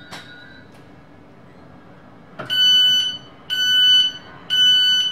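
Train door warning tone of a Class 700 Thameslink carriage: a loud, high electronic beep repeating about once a second, each beep about half a second long, starting a little over two seconds in. A sharp click comes just at the start, over the carriage's low background hum.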